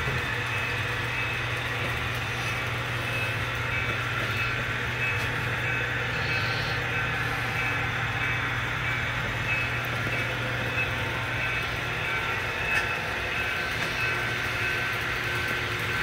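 Electric model trains running on a layout: a steady, even running noise of wheels on track, with a low steady hum underneath.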